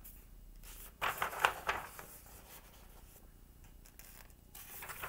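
Pages of a picture book being turned and handled: a cluster of sharp paper rustles and flaps about a second in, and another rustle near the end.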